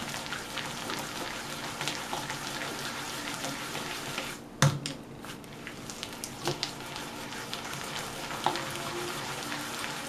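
A bare hand creaming vegetable shortening and sugar against a glass dish: a steady scraping, squishing noise dotted with small clicks, with one sharp knock about four and a half seconds in.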